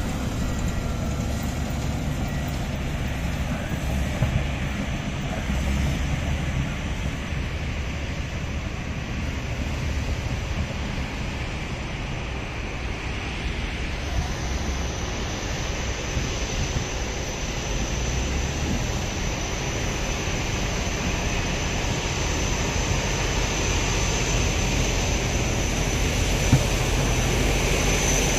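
Komatsu D155A bulldozer's diesel engine running with a steady deep drone; a thin high whine joins in about halfway through.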